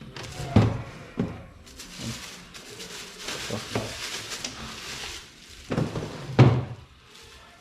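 Household handling noises: two sharp knocks about half a second and a second in, a few seconds of rustling in the middle, and two more bumps near the end, as things are moved and opened.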